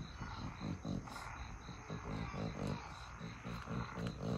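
An insect chirping in a steady, even rhythm, about three high chirps a second, over low irregular rumbling.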